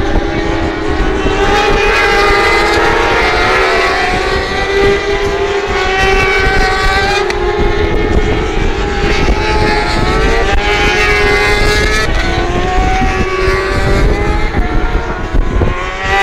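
Superbike racing motorcycles at full throttle on the circuit below, their engine note climbing and then dropping again and again as they shift up through the gears.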